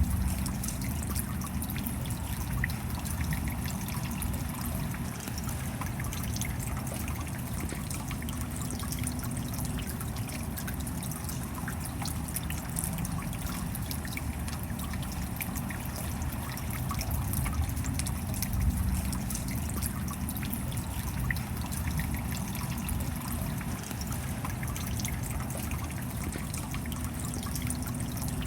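Steady rain falling, with many small drops ticking and water trickling over a low, even rumble.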